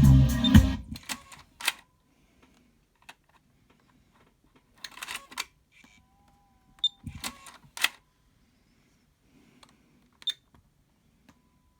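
Music cuts off about a second in. It is followed by a few scattered sharp clicks and crackles with near silence between them, and a faint steady tone in the second half.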